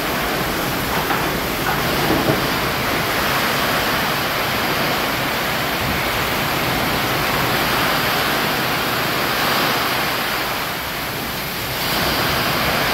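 Heavy rain in a storm downpour, a steady loud rush of water that eases slightly for a moment about eleven seconds in and then picks up again.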